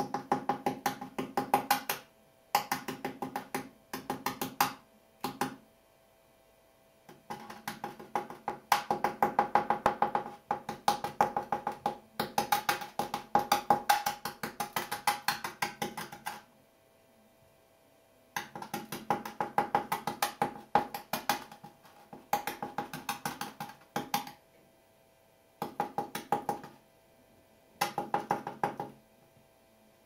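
Rapid wooden clicking in bursts of one to four seconds, separated by short pauses. Each burst is a quick, even run of clicks with a hollow ring.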